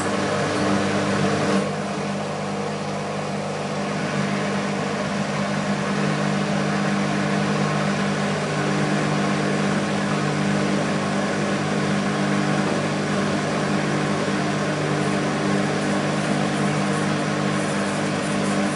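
BEKO WMB 51441 washing machine spinning its drum at high speed: a steady motor hum with a few held tones over a rushing whir, starting abruptly.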